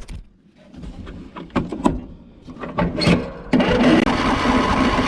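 A few scattered clicks and knocks, then from about three and a half seconds in a riding lawn tractor's starter cranks the engine without it catching. The owner thinks the fuel drained out of the line after he disconnected it.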